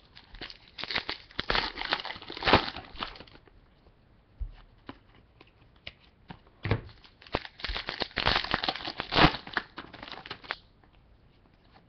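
Trading-card pack wrapper being torn open and crinkled by hand, in two bursts of crackling about seven seconds apart, with light clicks of cards being handled in between.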